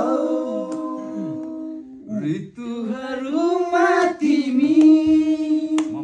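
Unaccompanied singing of a Nepali song, with long held notes and a short break about two seconds in.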